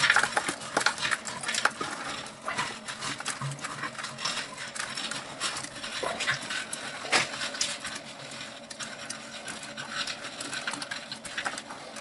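Limescale sediment being scooped by hand out of an electric water heater tank through the heating-element opening: gritty scraping and a steady run of small clicks as hard scale flakes rattle and drop into a plastic bucket.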